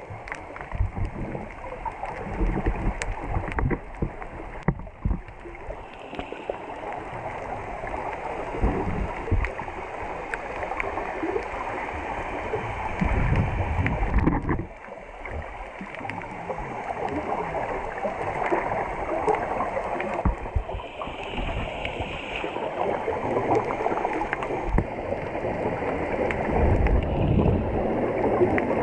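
Underwater water noise: a muffled, irregular rush and gurgle with many small crackling clicks and low rumbles, briefly quieter about halfway through.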